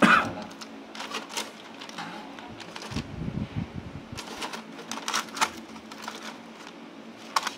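Wooden chopsticks handling grilled fish in a foil-lined air fryer basket: scattered light clicks and crinkles of the aluminium foil, with a louder knock at the very start. A steady low hum runs underneath.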